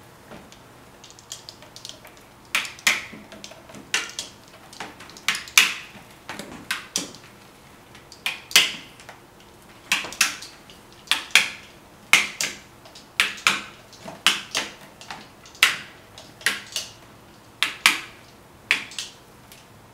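Fluted pastry cutter wheel rolling through a sheet of partly baked cracker, scoring it into crackers: a run of short, crisp scraping strokes, about one or two a second, starting a few seconds in.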